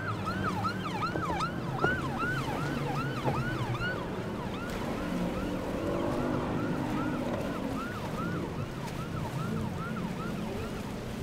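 Police boat siren in a fast yelp, about three quick rising-and-falling whoops a second, which fades in the middle and comes back more faintly. A low, steady engine hum runs underneath.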